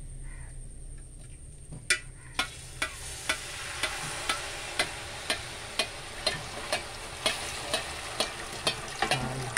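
Hot jaggery syrup sizzling as it is poured into a hot pan of roasted grated coconut, starting about two seconds in. A spatula clicks and scrapes against the metal pan about twice a second.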